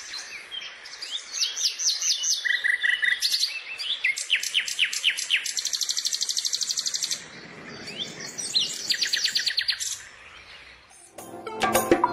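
Songbirds singing: quick series of high chirps, down-slurred whistled notes and fast trills, the song changing abruptly every second or two. Near the end, music with jingling percussion starts.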